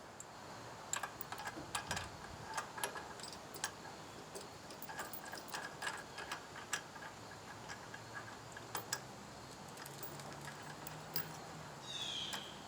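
Scattered light clicks and taps of hand tools and parts being handled, faint and irregular, while a drive belt is fitted to a mini bike's torque converter clutch. A short high squeak falls in pitch near the end.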